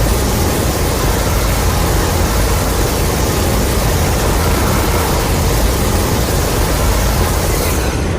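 Continuous loud rushing roar of noise with a heavy deep rumble underneath, a Godzilla monster sound effect; its high hiss falls away near the end while the rumble carries on.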